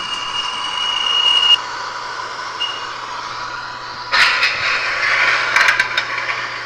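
Lionel O-gauge model subway train with onboard sound running on its track. A steady electronic tone stops about a second and a half in. About four seconds in a sudden air hiss comes in, with a few sharp clicks after it.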